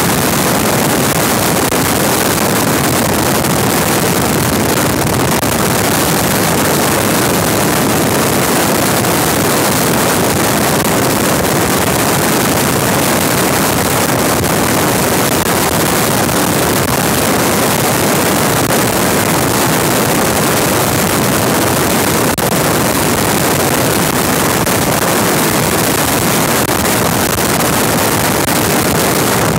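Helicopter cabin noise in flight: a loud, steady rush of engine and rotor noise heard from inside the cabin.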